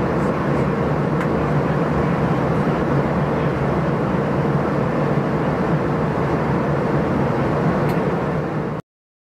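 Steady drone of an aircraft in flight, engine and airflow noise heard from inside the cabin; it cuts off suddenly near the end.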